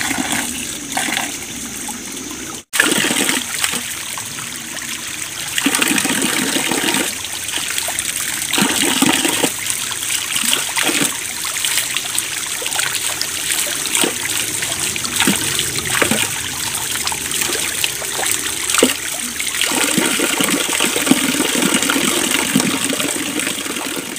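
A small forest stream running and trickling, with irregular splashes as hands scoop water from it and pour it over the arms.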